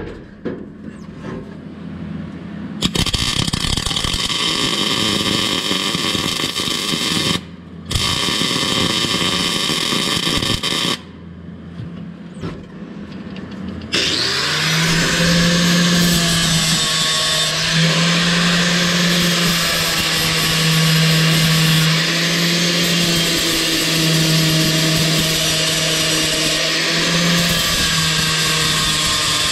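Angle grinder running against the steel trunk floor pan from about halfway through, a steady high whine whose pitch wavers slightly as the disc bites. Before it, two stretches of steady hissing noise a few seconds each, separated by a short break.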